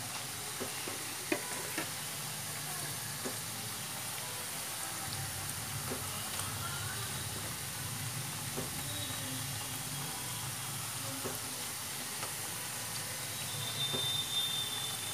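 Potato and onion pakoras deep-frying in hot oil: a steady sizzle, broken by a few sharp clicks and pops as they are stirred. The pakoras are golden and done.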